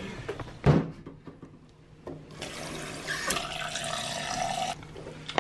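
Tap water running from a faucet-mounted water filter into a blender jar for about two and a half seconds, then shut off abruptly. There is a single sharp thump shortly before the water starts.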